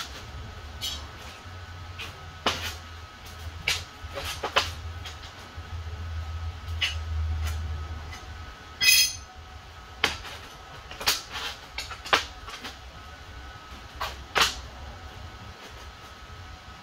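Scattered knocks and clanks of steel being handled and set in place on a steel plate, the loudest a short ringing ping about nine seconds in, over a low steady hum.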